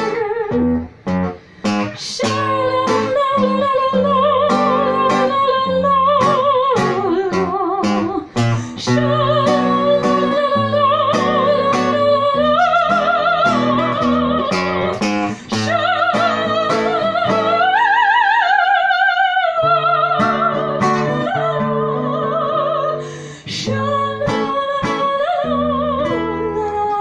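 A woman singing in a trained, operatic voice with wide vibrato, holding long notes, to a man's acoustic guitar accompaniment. About two-thirds of the way through her line climbs to a higher note and falls back.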